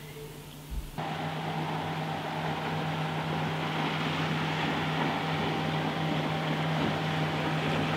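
Motorboat running at planing speed: a steady engine drone mixed with hull and spray noise, starting about a second in after a short thump and slowly growing louder as the boat approaches.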